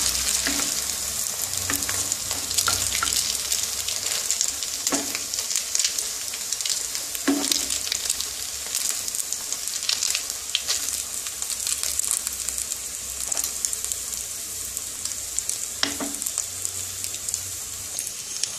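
Batter-coated bread sandwiches shallow-frying in hot oil in a pan: a steady sizzle with scattered sharp clicks and crackles, easing off slightly toward the end.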